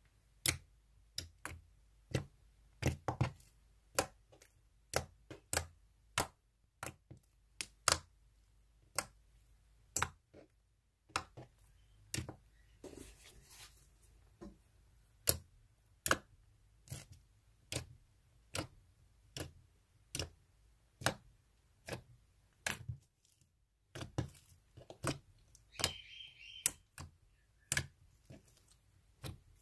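Slime being pressed and worked by hand, giving sharp, irregular clicks and pops, about one or two a second.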